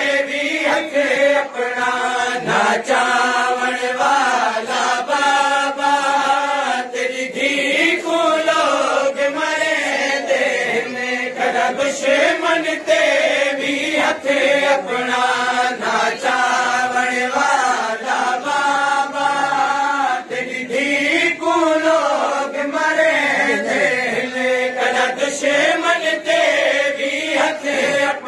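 Male voices chanting a noha, a Shia lament, as a lead reciter with a group answering him. Under the singing, hands beat steadily on chests (matam), a regular series of sharp slaps.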